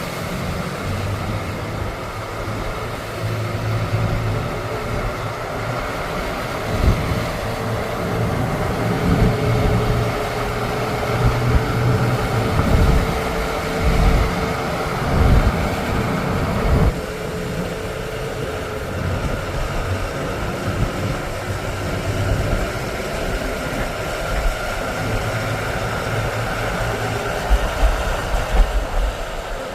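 Heavy rain and hail pouring down steadily over a vehicle's idling engine hum, with irregular low gusts of wind buffeting at times.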